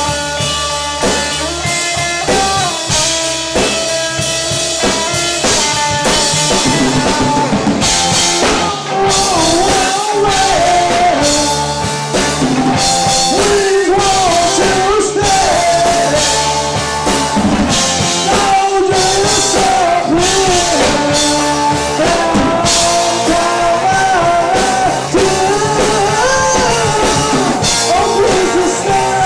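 Live rock band playing: electric guitar and drum kit, with a male voice singing lead from about six seconds in.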